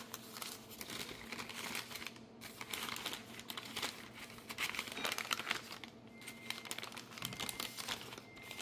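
Newspaper crinkling and rustling as hands unfold it to unwrap a glazed ceramic bowl, nearly continuous with a couple of short pauses.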